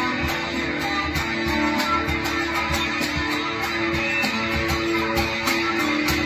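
Electric guitar played through a NUX MG30 multi-effects unit in a post-rock style, sustained layered notes over a looped guitar part, with a steady drum-machine beat ticking about three times a second.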